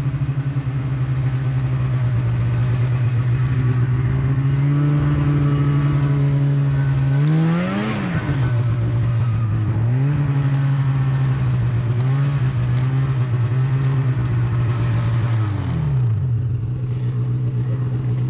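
Snowmobile engine running steadily under way, with the throttle rising to a higher pitch about eight seconds in and easing back down. Several smaller rises and falls follow before the revs drop near the end.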